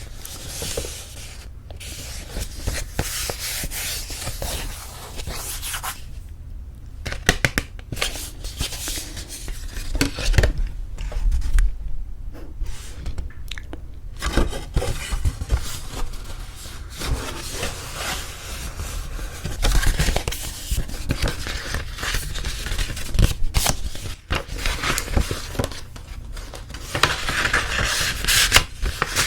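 Paper wedding invitation samples handled close to the microphone: card stock and envelopes rustling, scraping and crinkling, with many small clicks and taps.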